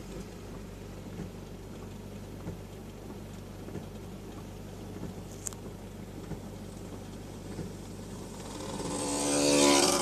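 Inside a car's cabin stuck in traffic in the rain: a steady low engine hum with faint regular ticks about once every second and a quarter. Near the end another vehicle passes close by on the wet road, its engine note and tyre hiss swelling to a loud peak and then fading.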